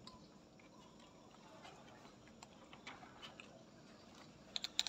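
Quiet outdoor background with scattered faint ticks, then a quick run of a few sharp clicks near the end.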